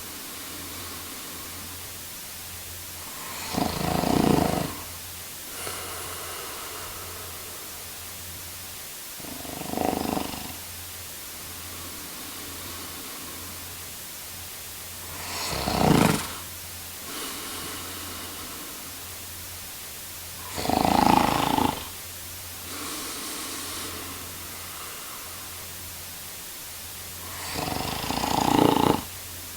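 A man snoring in a slow, regular rhythm: five loud snores about six seconds apart, with softer breaths between them, over a faint steady hiss.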